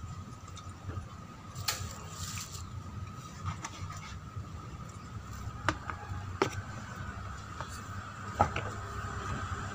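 A man chewing crispy fried chicken, with a few sharp crunches and mouth smacks, the loudest past the middle, over a faint steady high hum.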